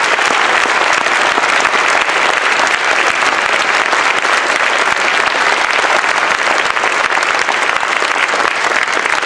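Audience applauding: a steady, dense clapping that holds at the same level throughout.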